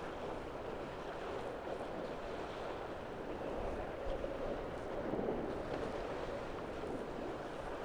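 Steady rush of water along the hulls of a Tornado racing catamaran sailing at speed, with wind on the microphone.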